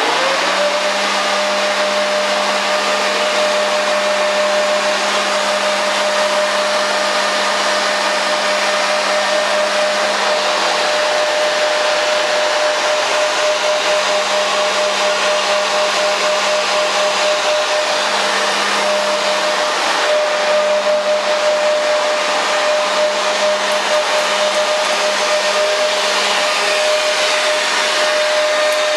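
Toro leaf blower switched on, its whine rising briefly as it spins up and then holding one steady pitch as it blows air down a foil-ducted tunnel.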